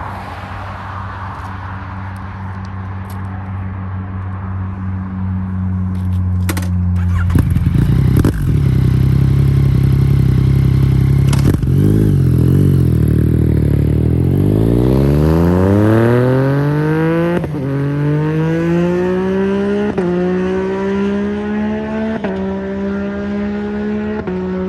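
Yamaha MT-09's three-cylinder engine through an Akrapovič full exhaust system, running steadily for about half the clip, then accelerating hard, its pitch climbing with a brief drop at each of several upshifts.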